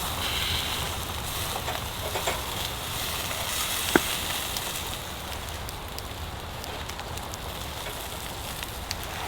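Firewood burning with a steady hiss and scattered small crackles, and one sharp pop about four seconds in.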